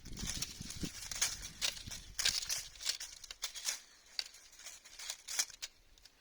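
Dry autumn leaves rustling and crackling in irregular bursts, easing off near the end.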